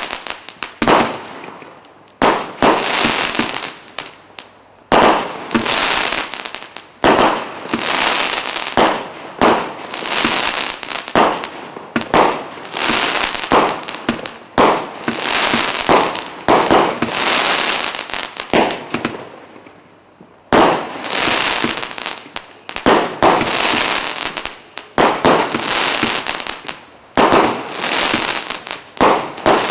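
Black Cat Majestic Finale multi-shot firework cake firing a steady barrage, about one shot a second, each a sudden bang that trails off over about a second. The shots pause briefly about twenty seconds in, then resume.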